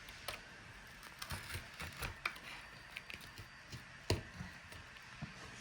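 Faint scattered clicks and light taps of small laptop display parts and cables being handled, with one sharper click about four seconds in.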